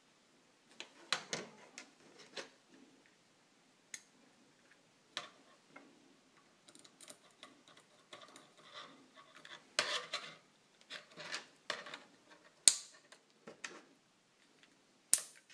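3D-printed plastic clamp parts being handled and fitted onto a steel flat bar: irregular small clicks, taps and rubbing, with two sharp clicks near the end, the louder one as a part snaps into place.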